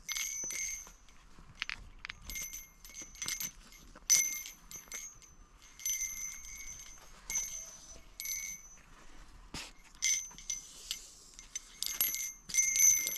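Repeated short metallic ringing, a dozen or so separate strikes or scrapes that each ring the same bright high tones, with small knocks in between.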